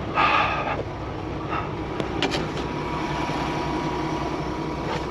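Semi truck's diesel engine idling steadily, with a short rough scraping noise in the first second and a couple of light clicks about two seconds in.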